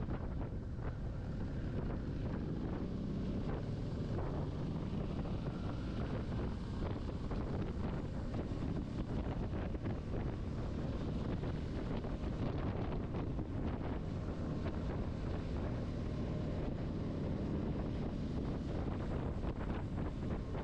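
Wind rushing over the microphone of a moving motorcycle, over the steady drone of its engine and tyres.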